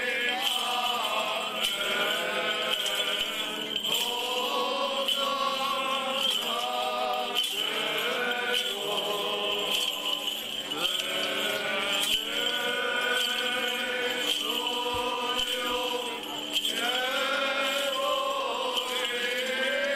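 A group of voices singing Orthodox church chant while walking in a religious procession, in short phrases of about two seconds each with brief breaths between them.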